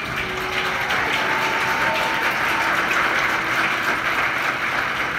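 Theatre audience applauding, a dense crackle of many hands clapping that starts suddenly as the music gives way, with faint held musical notes underneath.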